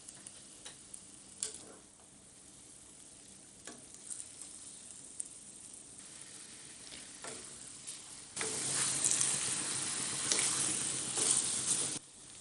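Chicken pieces frying in oil in a wok: a low sizzle with a few light clicks, then loud sizzling from about eight seconds in that cuts off suddenly near the end.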